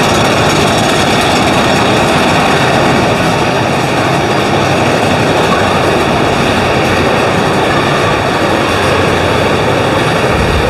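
Big Thunder Mountain Railroad mine-train roller coaster running on its track, a steady, loud noise of the cars heard from aboard the back row.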